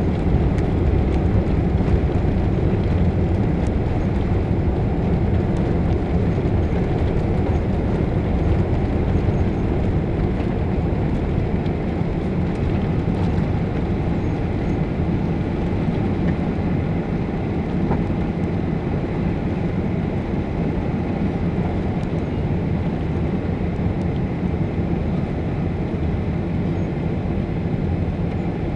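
Boeing 777-300 cabin noise on take-off: the jet engines at take-off thrust heard from inside the cabin during the take-off roll and initial climb. A steady low rumble that eases slightly past the middle.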